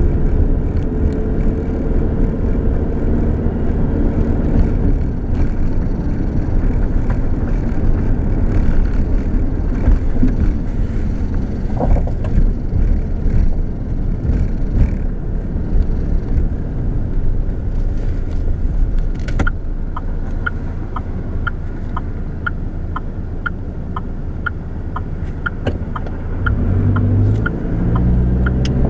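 2007 GMC Canyon pickup being driven, its engine and road noise heard from inside the cab as a steady rumble. In the last third a regular tick sounds about once every 0.7 s, the turn-signal indicator, while the truck turns into a lot.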